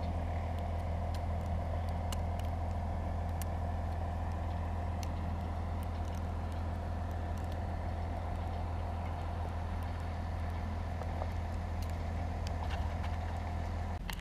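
Engine idling steadily: an even low hum with no change in speed, with faint scattered ticks on top.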